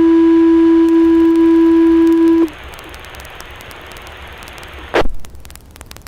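Two-tone sequential fire-paging tones over a radio channel: the long, slightly lower second tone is held steady and cuts off about two and a half seconds in, setting off the Blyth station's pagers. Then radio hiss, a sharp click about five seconds in, and crackle near the end.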